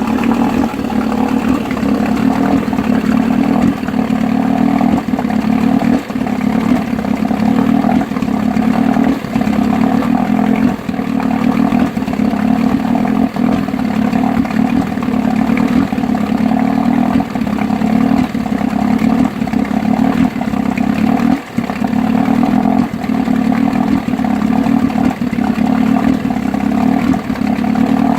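1969 Johnson 9.5 hp two-stroke twin outboard motor running steadily and coughing every few seconds, its sound dropping out for a moment, most deeply about two-thirds of the way through. The coughing comes from a lean mixture: a pinhole in a small tube under the carburettor lets the motor suck in air.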